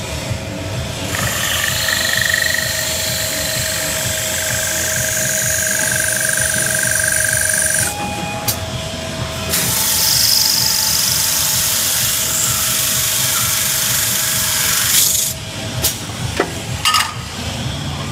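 Glass drilling machine's spindle driving its bit into a glass sheet: a loud, hissing, whining grind for about seven seconds, a short break, then a second pass of about five seconds, over the steady hum of the spindle motor. A few sharp knocks follow near the end.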